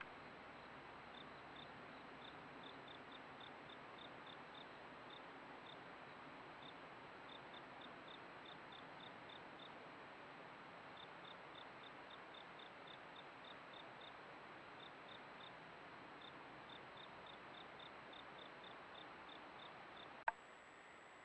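Faint steady hiss with short, high chirps repeating a few times a second and pausing briefly partway through, typical of an insect calling at night. A sharp click comes near the end.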